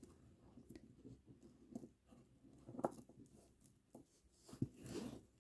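Faint handling of plastic kandi beads and bracelet string: scattered small clicks and rustles, with a sharper click about three seconds in, another past four and a half seconds, and a short rustle near the end.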